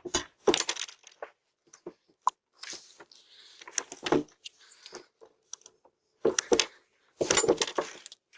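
Metal clicking, scraping and rattling at a door as a pry tool is worked against it, heard through a doorbell camera's microphone. Irregular sharp clicks, with louder bouts of rattling around the middle and near the end.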